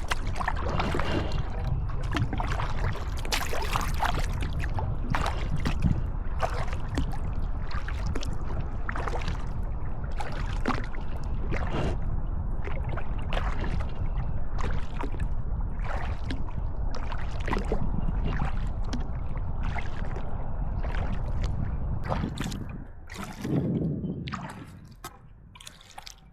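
Kayak paddling: paddle blades splashing and water trickling and dripping in quick, irregular strokes over a steady low rumble. The sound thins out near the end.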